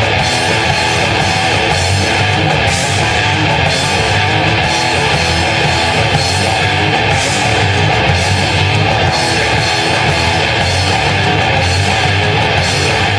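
Live rock band playing a loud, heavy song with electric guitar.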